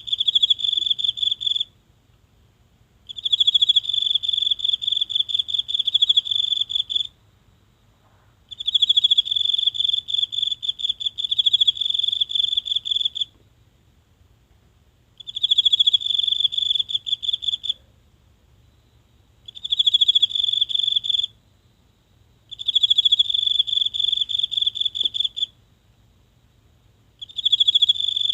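A single insect singing a high, rapidly pulsed trill in bursts of two to five seconds, with short pauses between them.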